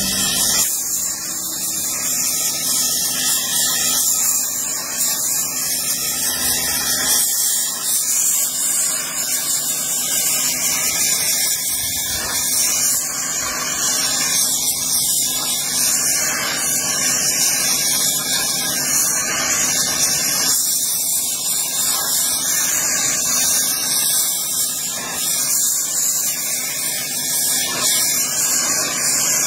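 Handheld gas torch flame burning with a steady hiss, heating the edge of a curved hatchet blade to red heat to harden it before quenching.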